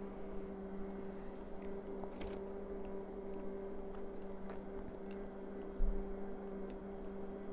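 Faint mouth sounds of someone tasting soup from a spoon: small lip smacks and clicks over a steady low hum. A soft thump about six seconds in.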